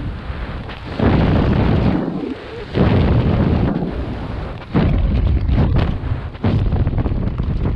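Rushing wind buffeting the camera's microphone during a skydive, a heavy low rumble that surges and eases several times, with brief lulls about two and a half and four and a half seconds in.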